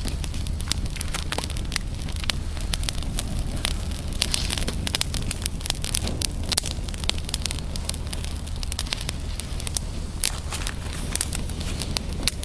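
Small, newly lit kindling fire crackling and popping, with many sharp, irregular crackles.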